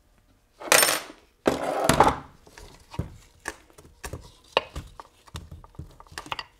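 Metal clinks and clatter as the reverse idler gear and shaft are worked loose and handled inside a T5 five-speed transmission's aluminum case. There is a rattle about a second in and a longer clatter near two seconds, then light clicks and taps.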